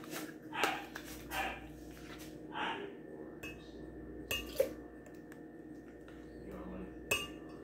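Light kitchen clatter of a plastic cup and dishes being handled: scattered clicks and knocks, the sharpest about four and a half seconds in and again near the end.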